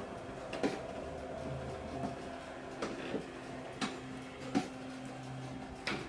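Electric roller shutter garage door closing: a steady motor hum with the slats clacking about once a second.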